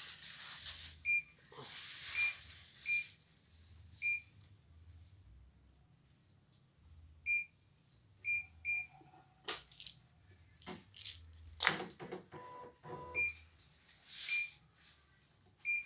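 Control panel of a CNY E900 embroidery machine beeping as its buttons are pressed: about ten short, identical high beeps at irregular intervals. A cluster of clicks falls between them a little past the middle.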